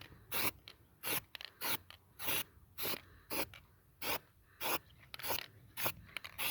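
Repeated short rasping strokes from a hand tool, roughly one every half second to second, while a new rear wheel hub is being fitted.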